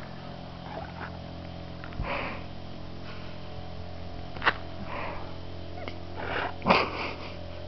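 A dog's breathy huffs and sniffs, a few short bursts a second or two apart, the loudest near the end, with one sharp click about halfway through.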